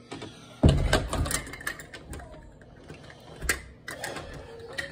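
A sharp knock, then a quick run of small clicks and rattles, and another knock about three and a half seconds in: the sounds of household things being handled and moved.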